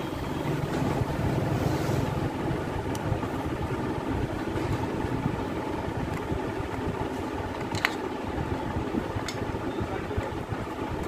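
Steady low background rumble with a few light metal clicks from a screwdriver and fingers working the old carbon brushes out of a motorcycle self-starter motor's brush holder.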